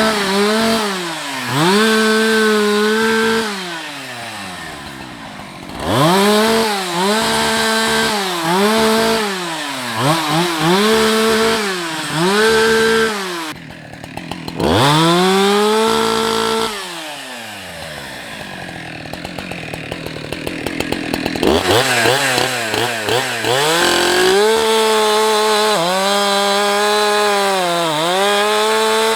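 Husqvarna 365 two-stroke chainsaw revved to full throttle again and again, its pitch sagging as it bogs down in the wood and dropping back to idle between cuts, typical of bucking and limbing a felled tree. It idles for a few seconds past the middle, then runs long at full throttle with repeated dips near the end.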